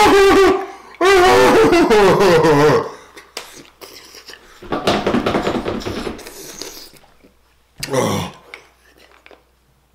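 A man's pained, wordless cries from the burn of very spicy fried chicken: a short one, then a longer wavering one. After that come a couple of seconds of heavy breathing out through the mouth and one last short cry.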